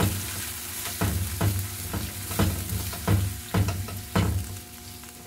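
Chicken pieces with ginger and shallots sizzling in a coated wok while a plastic spatula stirs them, its strokes scraping and sloshing every half second or so. The stirring eases off near the end.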